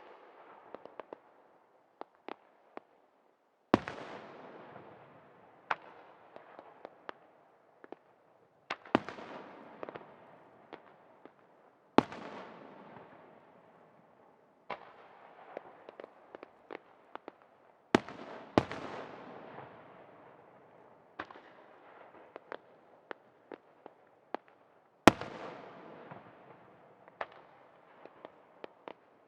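Aerial firework shells bursting: sharp booms every few seconds, each trailing off in a fading rumble, with smaller pops in between. The loudest boom comes about three-quarters of the way through.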